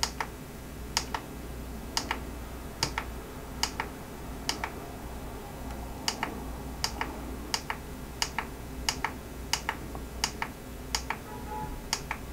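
Plastic push-buttons on an iRangeX IR8M radio transmitter clicking as they are pressed over and over, about once a second, many presses giving a quick double click, stepping through the protocol list.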